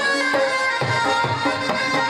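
Live Pashto folk music: harmonium and saxophone playing a held, reedy melody over strokes of a barrel drum and tabla.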